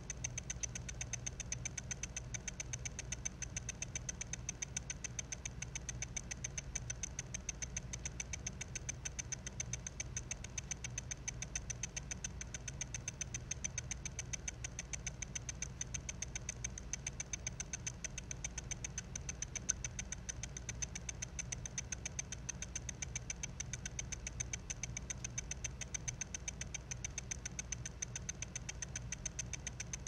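Failing 2.5-inch hard drive inside a Mac mini, picked up by a phone resting on the case: steady, regular ticking over a low hum. The ticking is the read head moving back and forth, hunting for a track it can no longer read on a damaged platter.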